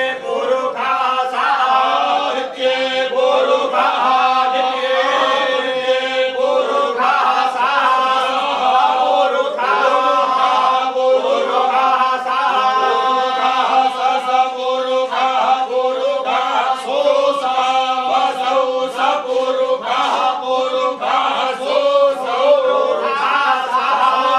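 A group of men chanting together in unison, many voices carrying one steady, continuous chant.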